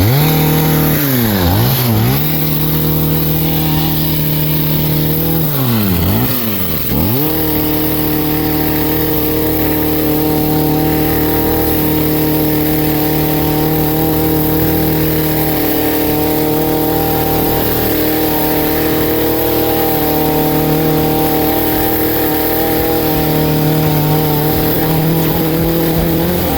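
Small petrol garden power-tool engine running steadily at high speed. Its pitch drops sharply and climbs back in quick pairs, about a second in and again about six seconds in, as the throttle is eased off and opened again.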